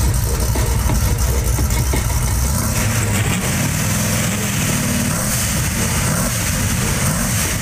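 Drag-race pickup truck's engine idling at low speed with a loud, low rumble. From about three seconds in, its pitch rises and falls a little as the throttle is worked lightly.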